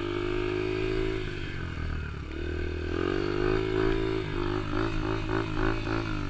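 Yamaha TT-R125 dirt bike's small single-cylinder four-stroke engine running at low revs. Its pitch rises about halfway through, then wavers in quick uneven pulses near the end.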